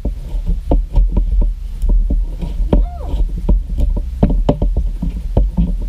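Metal spoon stirring slime in a plastic bowl: irregular clacks and knocks of the spoon against the bowl, two or three a second, over a steady low rumble.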